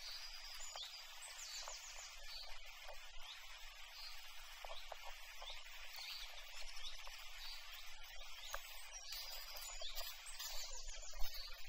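Outdoor ambience of birds calling, short chirping phrases coming back every few seconds, over a steady hiss, with a few faint clicks.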